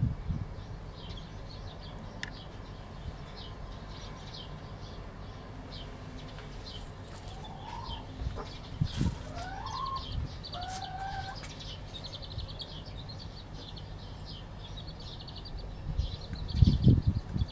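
Young chicks peeping in rows of short high cheeps, with a few longer rising calls a little past the middle. Low thumps come at the start, around the middle, and loudest near the end.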